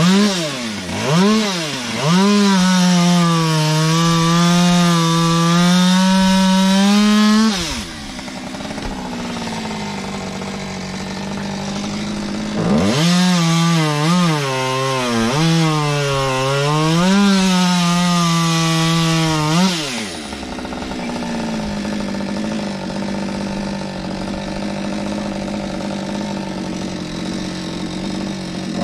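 Chainsaw blipped twice, then held at full throttle cutting into the trunk, its pitch sagging and recovering under load. It drops to idle about eight seconds in, revs up and cuts again from about thirteen to twenty seconds, then idles steadily until it revs once more at the very end.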